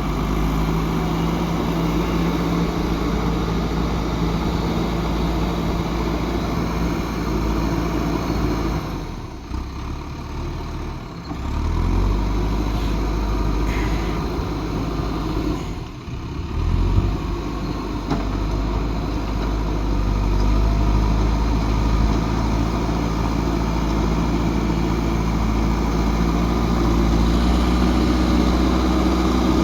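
Diesel engine of a JCB 3DX backhoe loader running steadily under work. Its note dips and shifts twice, about a third of the way in and again about halfway through.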